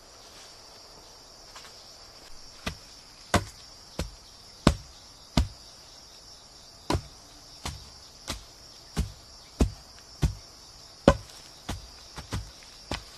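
A blade chopping into the trunk of a thin sapling near its base, one sharp chop about every two-thirds of a second, starting a couple of seconds in. Insects keep up a steady high buzz behind it.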